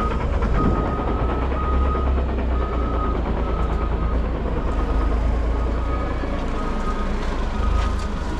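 Heavy machine's backup alarm beeping steadily, about one beep every three-quarters of a second, over the low rumble of a diesel engine.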